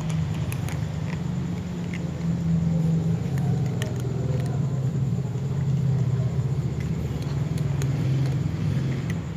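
Cats crunching dry kibble, heard as scattered short sharp clicks, over a steady low rumble.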